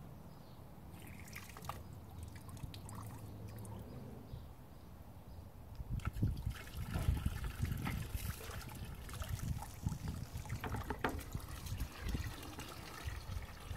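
Water spurting and splashing from a homemade water ram pump into a drum, with occasional sharp knocks, as the pump is worked by hand because it won't cycle on its own. It gets louder and more irregular from about six seconds in.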